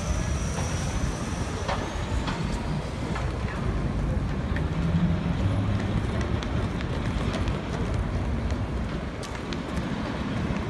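Busy city street at rush hour: a steady low rumble of road traffic, with scattered footsteps and small clicks on the pavement and a faint high whine that fades out in the first second or two.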